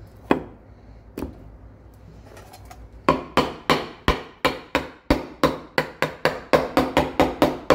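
Ball-peen hammer tapping a flat lid down onto a mold of resin-soaked burlap, seating it for pressing into micarta: a couple of single knocks as the lid goes in, then from about three seconds in a fast, even run of ringing taps, about three to four a second.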